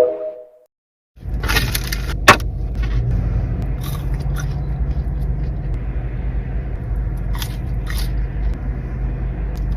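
Steady low rumble of a car with its engine running, heard inside the cabin, starting after about a second of silence, with a few sharp clicks and rustles over it, the loudest a second or so after it starts.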